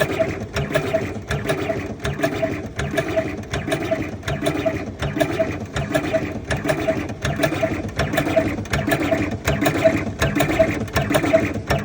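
Electric tobacco filling machine (HVK Makine Proton model) running, its mechanism cycling in an even, fast rhythm of clicks and whirring.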